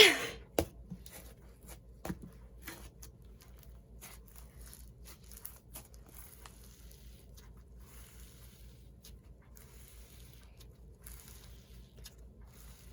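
Snow fizz slime mixed with instant snow being squeezed and stretched by hand: faint crackling and sticky clicking pops, a few louder pops in the first two seconds.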